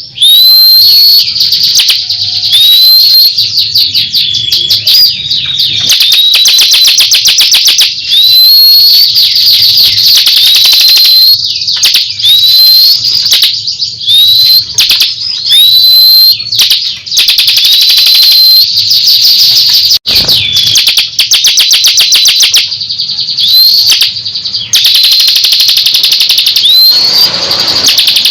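Ciblek kristal (bar-winged prinia) singing loudly and continuously: high, upward-sweeping whistled notes, each running into a rapid chattering trill, repeated over and over every second or two.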